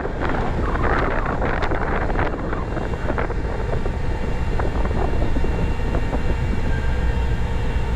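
Steady low machinery rumble from a gravel carrier's grab crane working cargo, with wind buffeting the microphone. Scattered clattering and rustling come in the first three seconds, then the rumble continues on its own with a faint steady hum.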